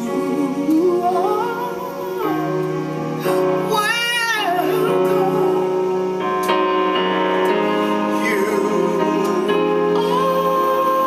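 Female gospel singer's voice in slow, sliding runs with a wide vibrato, over held keyboard chords that change every second or two.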